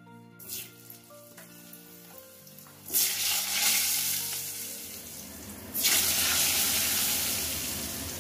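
Freshly washed, halved raw potatoes dropped into hot oil in a kadai: a sudden loud sizzle about three seconds in that slowly fades, then a second burst of sizzling near six seconds in as more pieces go in.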